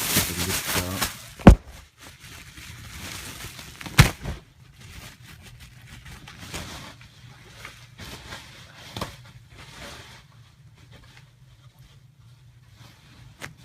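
Packaging and parts being handled while a new BMX frame is unboxed: rustling, with two sharp knocks about a second and a half and four seconds in, then lighter scattered handling noises.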